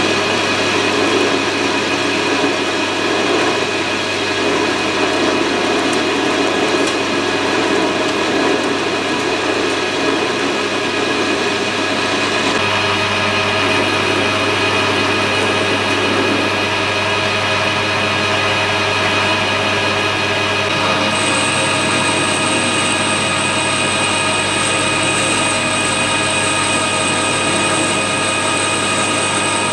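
Metal lathe running under power while a scrap-steel bushing is turned and then drilled from the tailstock: a steady whine of motor and gears over the noise of the cut. The tone mix changes abruptly about a third of the way in and again, with a high whine added, about two thirds in.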